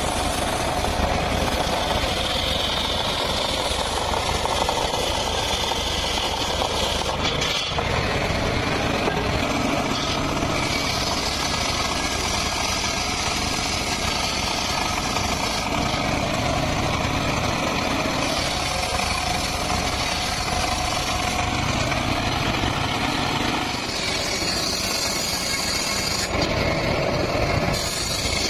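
Engine-driven homemade circular sawbench running, its large blade ripping through logs and boards. The running noise is steady and loud, and its tone changes abruptly a few times.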